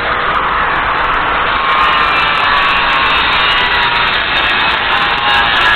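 Steady, loud machine noise, like a vehicle or motor running, with a faint whine that slowly drops in pitch.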